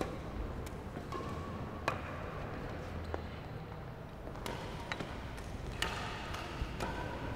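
Badminton rackets striking shuttlecocks during practice: sharp pops at irregular intervals, roughly one every half second to second, with a few short squeaks between them.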